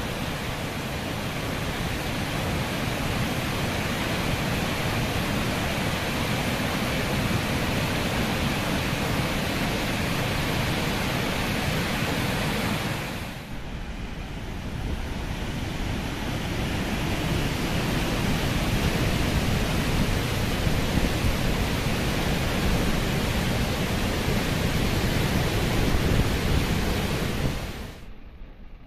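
Water pouring over the curved overflow spillway of the Rama hydroelectric dam, a steady loud rush of falling water. It dips briefly about halfway and falls off near the end.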